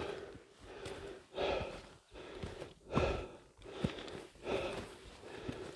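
A hiker breathing hard through nose and mouth while climbing, short breaths in and out in a steady rhythm, with a few light footfalls on rock.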